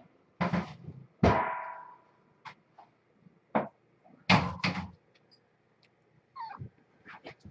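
Loud clattering knocks from things being handled and set down, one about a second in leaving a brief ringing tone, and a double knock in the middle. Near the end a kitten gives a short mew.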